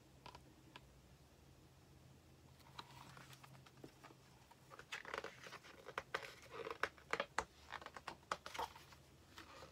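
Faint paper rustling and crinkling of a picture book's pages being handled and turned, a cluster of short rustles starting about halfway through.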